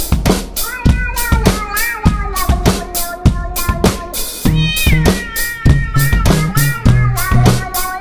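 A cat's meows set to music: a drum kit plays a steady beat around the cat's bending, voice-like calls. Low bass notes join about halfway through.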